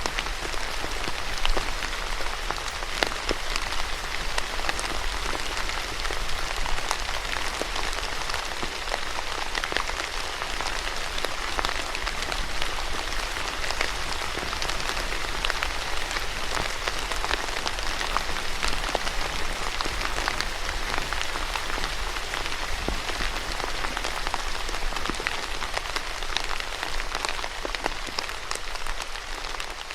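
Steady rain falling on a surface, a dense even hiss full of individual drop ticks.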